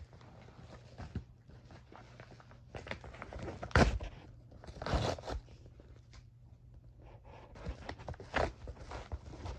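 A mail package being opened by hand: irregular rustling and handling noises of wrapping, with a sharp knock almost four seconds in and louder bursts of rustling about five and eight and a half seconds in.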